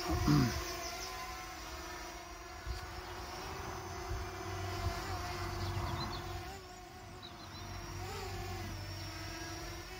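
Holy Stone HS510 quadcopter drone flying: a steady propeller hum whose pitch wavers slightly now and then as the motors adjust.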